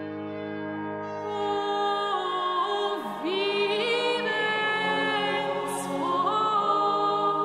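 Background music: a sung chant over sustained held chords, a voice line entering about two seconds in.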